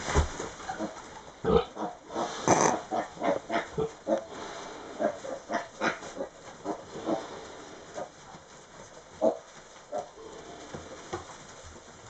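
Tamworth sow and her newborn piglets grunting, in short grunts that come about twice a second in the first half and grow sparser towards the end.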